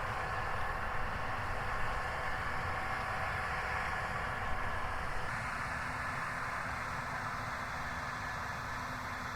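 Case 7140 Axial-Flow combine harvester running steadily as it harvests, a constant machine hum with faint steady tones.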